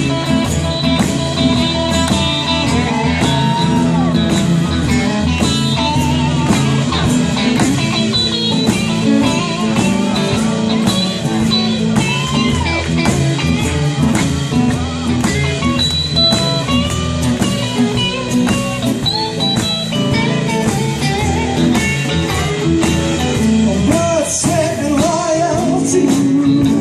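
Live band playing a blues-rock instrumental break, with a lead guitar soloing in bending, sliding phrases over bass and a steady drum beat.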